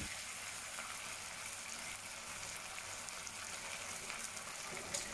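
Faint, steady sizzling of asparagus and carrots cooking in a thickening cornstarch-slurry sauce in a frying pan.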